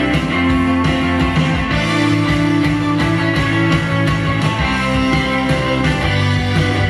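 Guitar-led rock music with a steady bass line, played back through a 5.1 soundbar system as an audio demo.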